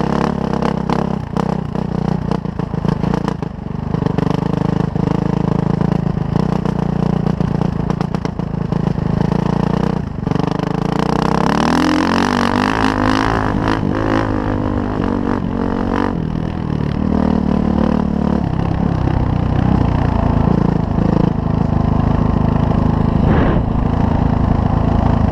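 Suzuki RM-Z450 dirt bike's single-cylinder four-stroke engine under way on a trail, engine speed rising and falling, with a clear climb in pitch about halfway through. Many short knocks and rattles run through it.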